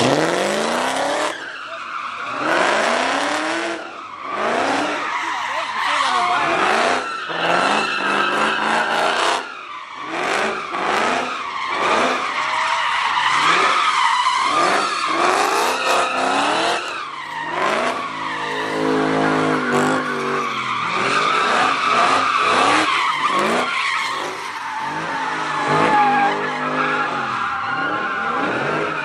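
A car spinning donuts, its engine revving up again and again about once a second while the tyres squeal continuously. For a few seconds past the middle the revs hold steadier before the sweeps resume.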